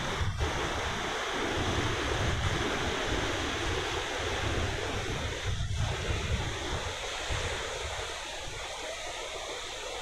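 Ocean surf washing onto a beach, a steady hiss of breaking waves, with wind buffeting the microphone as a low rumble.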